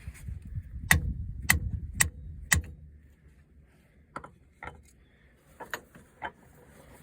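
Sharp metallic clicks of a wrench working on skid-steer hydraulic fittings. There are four evenly spaced clicks about half a second apart, then four fainter ones after a short pause.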